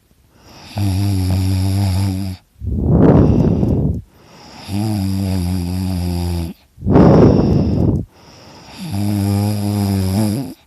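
A sleeping person snoring loudly: three long snores at a steady low pitch, each about a second and a half, alternating with two shorter, louder noisy breaths, in a regular cycle about every four seconds.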